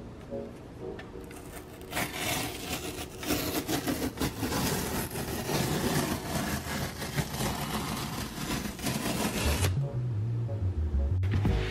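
Packing tape being peeled off the seam of a cardboard shipping box: a long, crackling rip that starts about two seconds in and runs for several seconds. Low bumps of the box being handled follow near the end.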